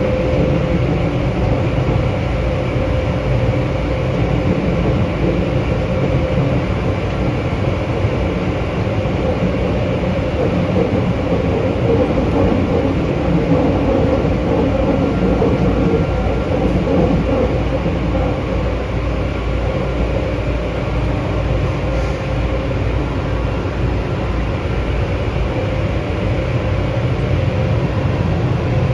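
Tokyu 8500 series Hitachi chopper-controlled electric train running through the subway tunnel, heard from inside the passenger car: a steady rumble of wheels and traction motors with a faint steady hum.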